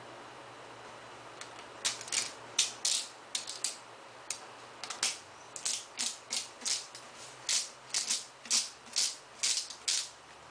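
Stiff paper posters rustling and crackling as they are handled and unrolled. The run of sharp crackles, about two or three a second, starts about two seconds in.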